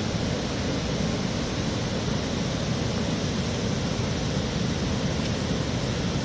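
Steady, even rushing noise with a low rumble, unchanging throughout; no barks or crow calls stand out.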